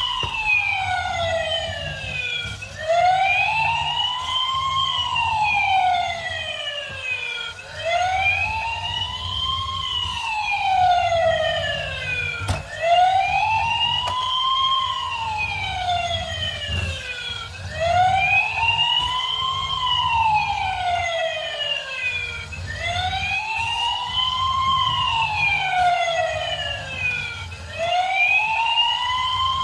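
Toy police car's electronic siren wailing, its pitch rising and falling in slow sweeps about every five seconds, over a low steady hum.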